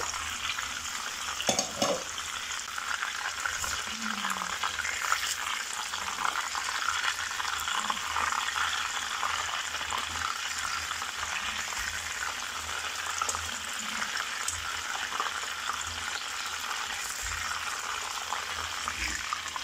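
Breaded chicken rolls frying in shallow hot oil in a pan: a steady crackling sizzle.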